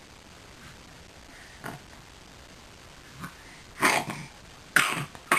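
A ten-month-old baby coughing: two faint short coughs, then three louder coughs close together near the end.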